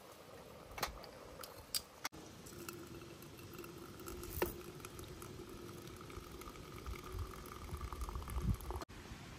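Liquid bubbling at a boil in a cooking pot, with scattered small clicks and knocks; from about two seconds in a faint steady tone runs beneath it.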